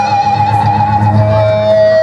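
Live rock band playing an instrumental passage: an electric guitar holds a sustained, wavering lead note that drops to a lower held note about halfway through, over electric bass guitar.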